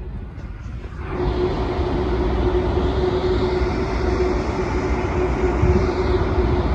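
A steady mechanical hum with a loud rushing noise and low rumble, coming in suddenly about a second in and holding steady.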